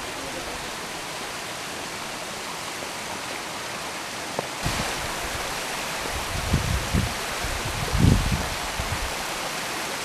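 Steady rushing of water from a stream and small waterfall. A few low thumps hit the microphone in the second half.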